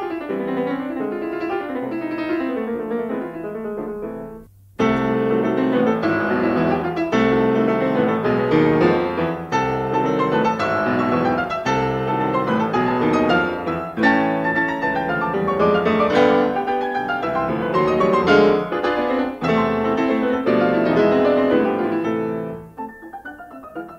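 Background piano music. It stops for a moment about four and a half seconds in, comes back louder, and fades down near the end.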